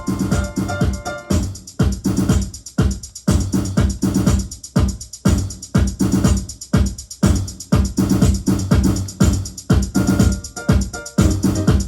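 Electronic beat from a drum machine or groovebox: an even pattern of drum hits with deep booming bass notes that slide down in pitch. A layer of held keyboard or synth chords sounds over the first second or so, drops out, and comes back briefly near the end.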